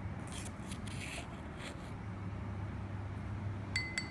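A plastic spoon scraping and stirring coffee grounds in a small ceramic bowl, soft short strokes, followed near the end by a few quick ringing clinks. A steady low hum runs underneath.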